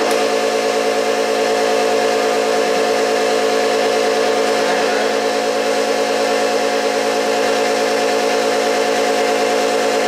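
OBI crank punch press running idle between strokes, its motor and flywheel giving a steady, loud hum with several pitched tones.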